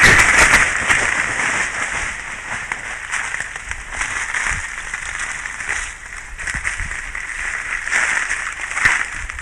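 The last of a rapid run of popping beats from a male Cross River gorilla drumming on his chest, ending about half a second in. After that comes a steady background hiss of forest ambience with a few faint snaps.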